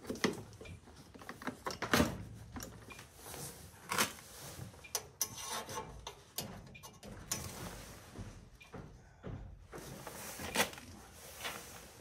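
Hand tools and parts being handled: irregular clicks, knocks and rustling as tools are rummaged through in a soft tool bag and worked with at the furnace, with a few sharper knocks standing out.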